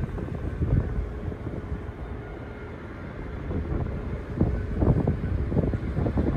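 Wind buffeting the microphone in gusts, strongest in the second half, over a low rumble and faint steady whine from a distant Air France Boeing 777-200ER's GE90 jet engines as the airliner lands.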